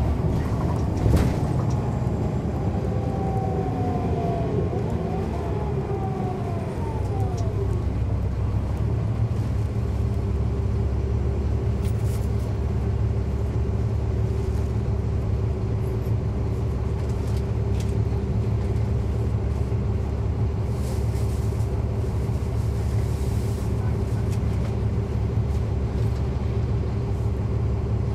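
Interior sound of a NABI 416.15 transit bus with a Caterpillar C13 ACERT diesel and ZF Ecomat six-speed automatic, heard from the rear seats. A driveline whine falls in pitch over the first several seconds as the bus slows. The rest is a steady engine drone over a low rumble.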